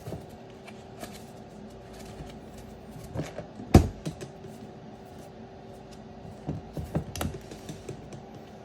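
Light clicks, taps and knocks of trading-card boxes, packs and a case being handled on a table, with one louder knock about four seconds in and a run of taps near the end, over a steady low hum.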